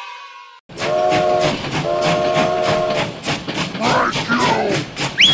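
Toy steam train sound: an even chugging of about five beats a second, starting after a brief silence, with two whistle blasts, the second longer. Wavering tones follow, and a high squeal near the end.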